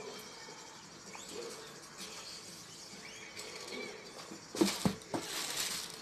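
Tissue paper and plastic wrap rustling in a cardboard shoebox as a sneaker is handled and lifted out, loudest from about four and a half seconds in, with a couple of sharp knocks against the box.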